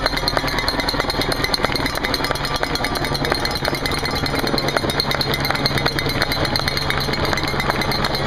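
Racing bikes of a pro road-race peloton streaming past, with roadside spectators making noise: a dense clatter of rapid clicks and knocks, joined about three seconds in by a steady low engine hum.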